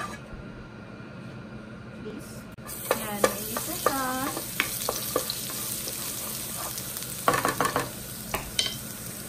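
Chopped garlic starts sizzling in hot olive oil in a non-stick frying pan about two and a half seconds in, a steady hiss that runs on. A wooden spoon stirs and scrapes it around the pan.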